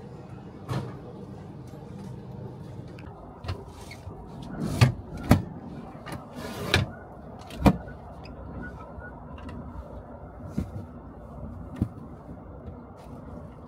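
A train attendant converting sleeper-car seats into a berth: a series of knocks and thuds, with one short scrape about halfway through, as seat cushions and padded mattress sections are moved and laid down. A steady low hum from the carriage runs underneath.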